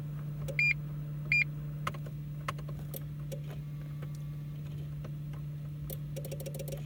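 Renault Mégane's electrics on a car that won't start: two short beeps from the warning chime about a second in, over a steady hum, with scattered clicks and a quick run of clicking near the end.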